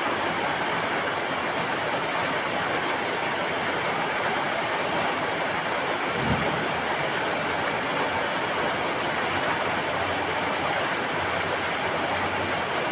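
Steady heavy rain, an even hiss. A brief low thump about six seconds in.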